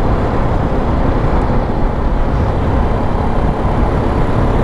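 Motorcycle ride: steady wind rumble on the microphone over the running engine, with no change through the stretch.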